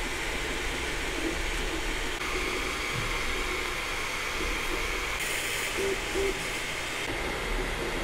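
Sovol SV01 Pro 3D printer running a print: a steady whir from its cooling fans, with a few faint, short motor tones from the moving print head.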